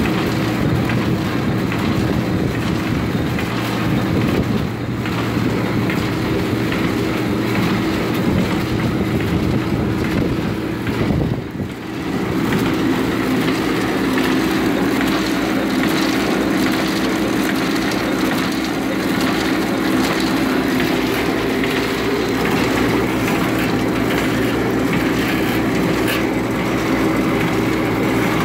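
Popcorn pouch-packing machine running steadily, a form-fill-seal packer with a rotating cup filler. It gives a constant motor hum under a continuous mechanical clatter.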